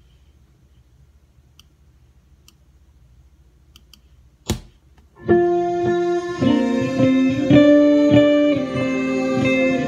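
Faint low amplifier hum, a single sharp click about four and a half seconds in, then a PRS electric guitar played through an amplifier: ringing chords, each held about a second before the next.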